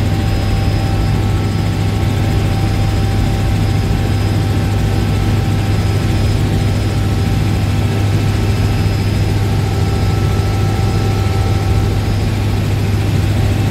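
Helicopter in flight, heard from inside the cabin: a loud, steady drone of rotor and engine with a strong low hum and a faint steady whine above it.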